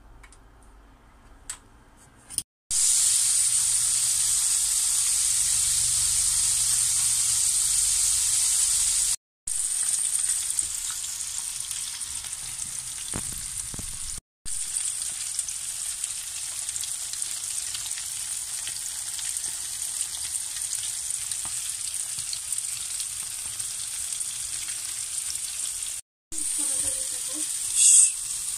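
Flour-coated whiting fillets frying in hot oil in a pan: a loud, steady sizzle. It follows a quiet couple of seconds with a few light clicks, and drops out briefly three times.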